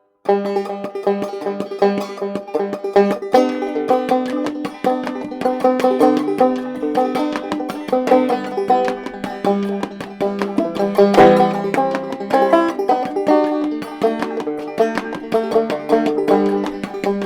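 Mulheron open-back banjo played clawhammer style: a steady run of plucked melody notes over a repeating low drone string.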